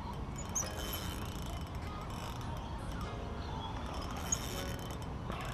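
Fishing reel ratcheting steadily while a hooked carp is played on a bent rod.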